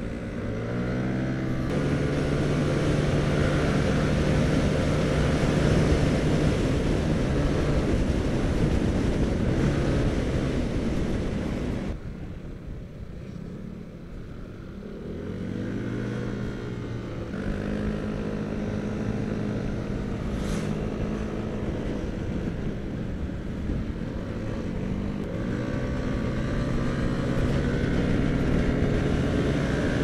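Yamaha scooter's single-cylinder engine pulling under throttle, with wind rushing past the rider. The note climbs about two seconds in and runs strongly, drops away and quietens when the throttle closes around twelve seconds in, then climbs again a few seconds later.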